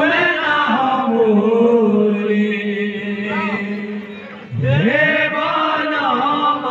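Male voices chanting a devotional kirtan over a steady held drone, in two long phrases with a short break about four and a half seconds in.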